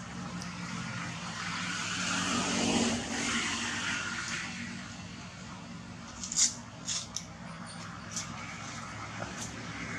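A passing vehicle's rushing noise swells to a peak about three seconds in and fades, over a steady low hum. A few short, sharp clicks follow in the second half.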